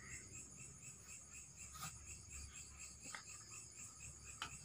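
Night insects chirping steadily in a fast, even pulse, faint, with a few soft clicks of handling.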